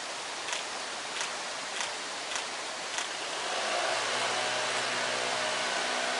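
Steady rushing outdoor noise, with a run of light ticks about every half second in the first half and a low droning hum that comes in about four seconds in.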